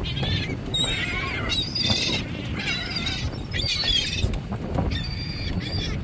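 Gulls calling, a string of about six high calls, each under a second, over a steady low rumble.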